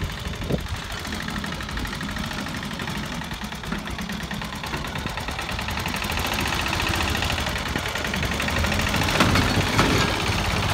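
Home-built mini tractor's engine running steadily as the tractor is driven over loose sand mounds, growing louder near the end as it comes close.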